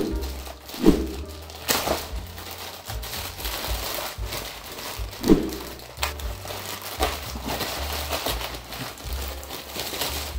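Packaging crumpling and crackling as a parcel is torn open by hand, with a few sharper knocks of handling.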